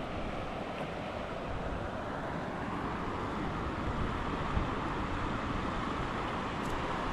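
Steady rushing noise of flowing creek water, with wind buffeting the microphone.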